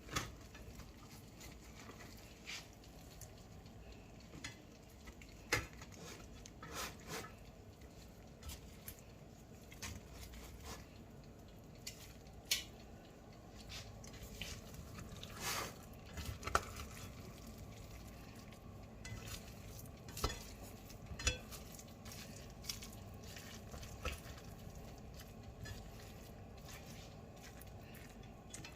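Utensil stirring in a cooking pot: irregular clinks and knocks against the pot, some louder than others, over a faint steady hiss.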